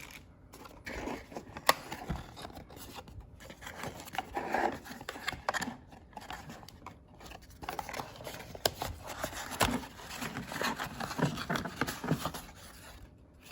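Rustling and scraping of product packaging being handled and unpacked, with a few sharp clicks, the loudest about two seconds in.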